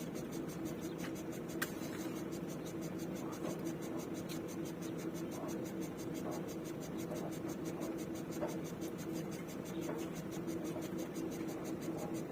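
Drilling rig's engine running steadily at idle: an even hum with a fast, regular ticking over it.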